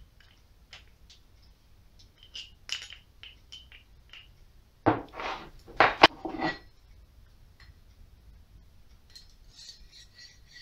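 Metal tool parts handled on a bench: light clicks and clinks, then a louder clatter of knocks about five to six seconds in as the aluminium jig and steel guide rods are set down. Faint metallic clinking near the end as a steel rod is slid through the jig's steel bushings.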